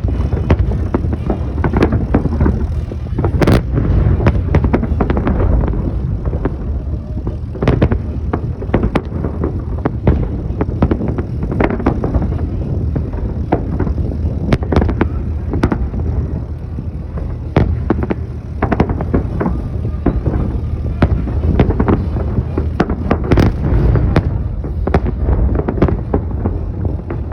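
Fireworks salute: a long irregular run of bangs, some close together, over a steady low rumble.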